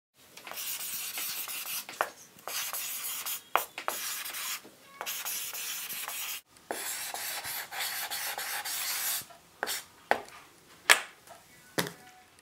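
Repeated rubbing or scraping strokes, about five of them, each a second or two long, followed by several sharp knocks near the end.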